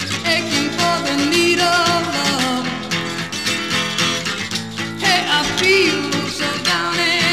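Music with no words: a song's instrumental passage, a lead line wavering in pitch over steady chords.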